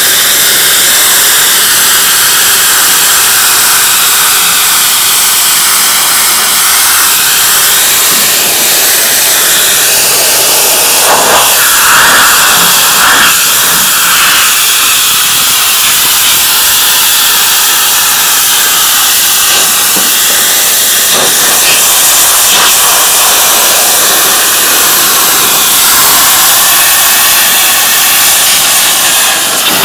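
Hot-water pressure washer (4 gallons a minute, 2000 psi) spraying a steady, loud hissing jet onto a greasy pan, cutting the grease off.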